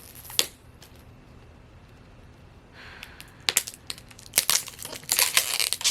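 Plastic shrink-wrap being picked at and peeled off a plastic Mini Brands capsule ball: scattered sharp clicks and crinkling, quieter for a couple of seconds, then busier crinkling in the second half.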